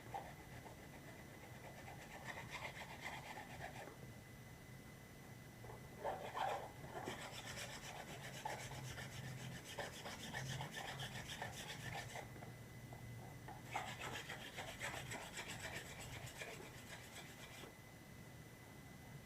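Hand sanding of a 3D-printed plastic prop part: sandpaper rubbed quickly back and forth, in two long spells of fast strokes with a short pause between, after lighter rubbing near the start.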